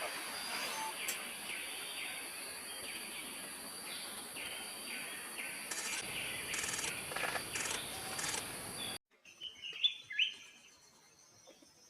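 Small birds chirping in many short calls over a steady high hiss. About nine seconds in the sound cuts off abruptly, and a quieter stretch follows with a couple of short sweeping bird calls.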